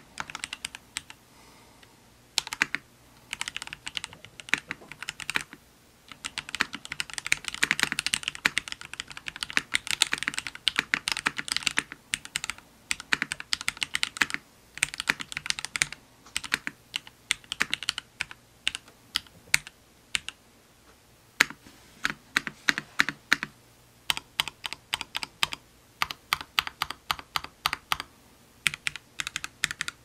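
MelGeek Mojo68 mechanical keyboard with lubed Gateron Silver Pro switches being typed on: runs of quick keystroke clacks broken by short pauses.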